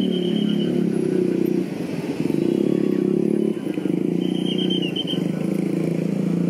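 KRL Commuter Line electric multiple unit (former Tokyo Metro 6000 series) running slowly into a station, its traction equipment giving a steady low hum. A faint high squeal comes at the start and again about four seconds in.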